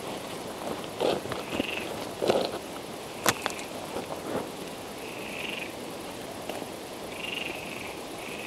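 Frogs calling: several short calls a couple of seconds apart, over a steady outdoor hiss. In the first half a few knocks and thumps are heard, with one sharp click about three seconds in, the loudest moment.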